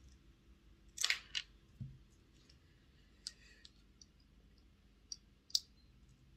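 Small plastic and metal clicks as the motor and drive shaft are worked out of an Airfix Class 14xx OO gauge model locomotive chassis by hand. There is a short clatter about a second in, a light knock just after it, then a few sharp ticks.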